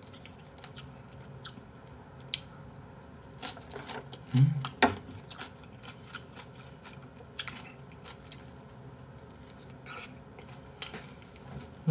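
A person eating chicken and abalone porridge: chewing and mouth noises, with scattered short clicks of a wooden spoon and chopsticks against the bowl. The loudest moment comes about four and a half seconds in.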